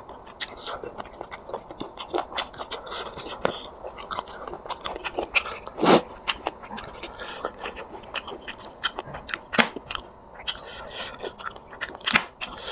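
A person chewing and biting close to the microphone while eating chicken curry with rice: irregular wet mouth clicks and smacks with some crunching, and one louder bite about six seconds in.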